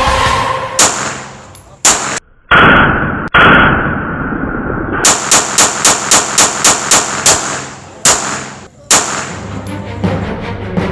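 Pistol gunshots. Single shots come about a second apart, then two longer muffled blasts, then a rapid string of about nine shots at roughly four a second, then two more single shots near the end.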